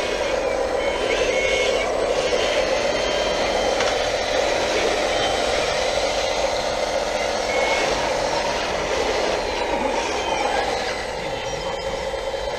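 Whine of a 1/14-scale RC hydraulic wheel loader's electric hydraulic pump and drive, running steadily as the bucket works dirt. The pitch wavers with load and sags for a while near the end.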